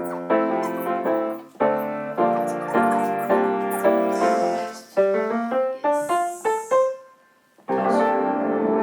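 Background piano music: a run of chords, then a rising line of single notes about five seconds in, a brief pause, and the music starting up again near the end.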